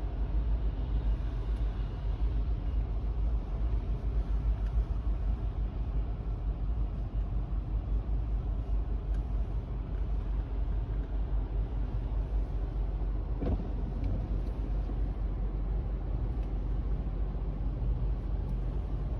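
Wind buffeting the microphone in a snowstorm: a steady, fluttering low rumble, with one faint knock about two-thirds of the way through.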